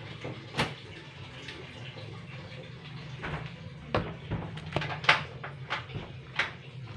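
Irregular sharp knocks and clicks of a kitchen knife cutting jackfruit and pieces landing in a metal pot, about seven in all, mostly in the second half, over a steady low hum.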